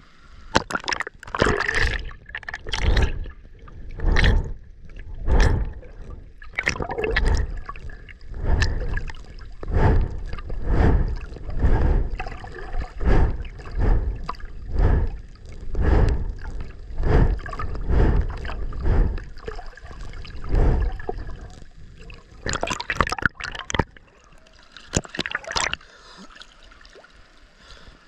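Seawater splashing and sloshing over a camera carried at the waterline by an ocean swimmer, in an even rhythm of about one surge a second as the camera dips in and out of the water. The rhythm stops about 21 seconds in, with two more splashes before it settles to a quieter wash.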